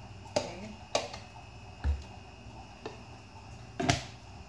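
Kitchen handling sounds from a table knife and a mayonnaise jar: about five sharp clicks and knocks, with a dull thump about two seconds in and the loudest knock near the end.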